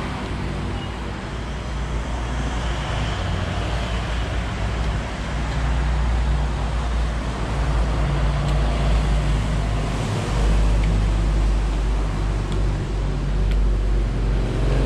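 Road traffic going by: a steady low rumble and hiss that grows louder about halfway through.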